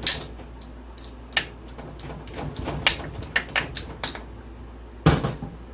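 Metal hand tools and engine parts clinking and knocking during work on the engine's case bolts: scattered sharp clicks, with a heavier clank about five seconds in.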